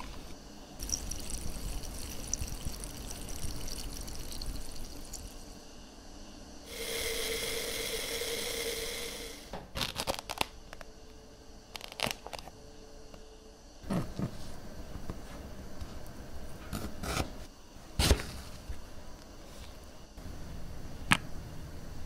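Close-miked drink-making sounds: metal tongs and ice clinking in a glass, a few seconds of liquid pouring, then a knife cutting through passion fruit rind on a cutting board, with a series of separate sharp taps and clicks.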